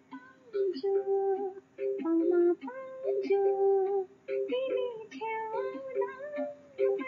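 Background music: a woman's voice singing a slow melody in held notes that glide between pitches.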